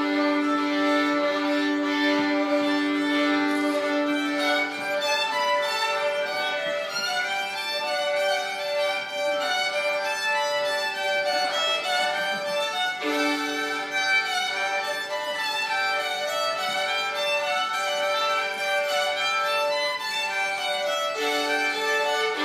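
A small group of violins, an adult and three children, playing a simple tune together, with long held notes.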